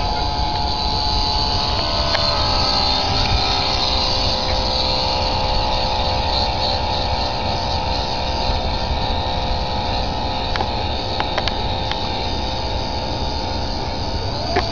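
Radio-controlled model gozzo's electric drive motor whining steadily. Its pitch drops about two seconds in as it throttles back, then rises sharply near the end as the throttle is opened again.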